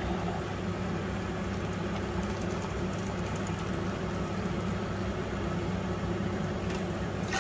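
Steady low hum and rushing noise of a large aluminium pot of chicken broth heating on the stove, coming up to the boil.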